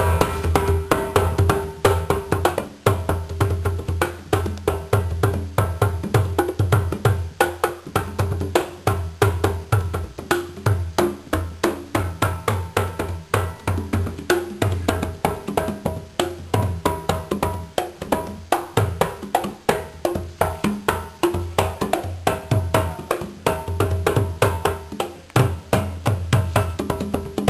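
Percussion music: a deep drum under rapid, dense clicking wood-block-like strikes in a steady, driving rhythm.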